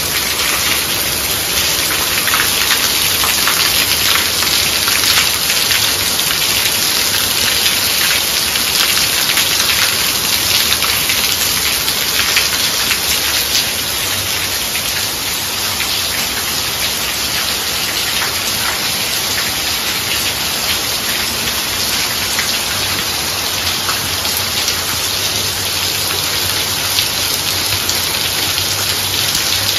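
Heavy downpour: a dense, steady hiss of rain with countless fine drop ticks, falling on a flooded concrete yard and clay-tile roofs, with water streaming off the roof edges.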